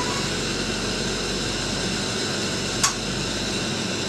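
Nortel Major Plus glassworking bench torch burning at full flame, a steady hiss of gas and flame, with one sharp click nearly three seconds in.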